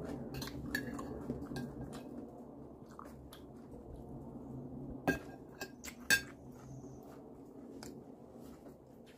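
Metal spoon clinking and scraping against a ceramic plate between mouthfuls, with chewing; two louder clinks come about five and six seconds in.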